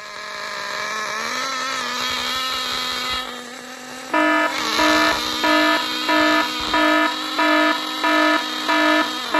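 HPI NitroStar nitro engine revving up to a high, steady pitch with its fuel needle screwed in to lean it out, over-revving out of control. From about four seconds in, a loud fixed-pitch tone pulses on and off about twice a second over it.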